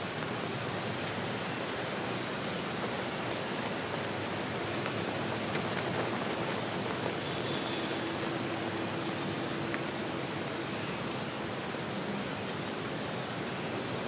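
Steady rush of running water from a small waterfall and a shallow stream pouring over rocks.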